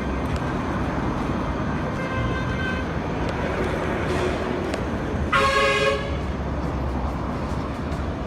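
Steady rumble of street traffic, with a vehicle horn sounding once, briefly, about five seconds in. A fainter pitched tone, perhaps another distant horn, comes about two seconds in.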